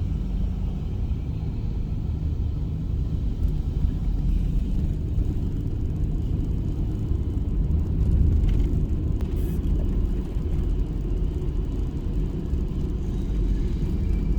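Car driving along a road: a steady, low rumble of engine and tyres.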